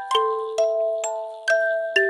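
Instrumental music: a slow melody of struck, bell-like notes, about two a second, each sounding two or three pitches together and ringing on as it fades.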